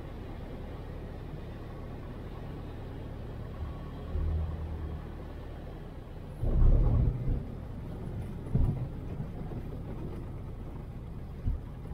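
Piper Tri-Pacer's engine idling with a steady low rumble, heard inside the cockpit as the plane rolls out on a grass runway. Several thumps and rattles from the landing gear on the uneven turf, the loudest about six and a half seconds in.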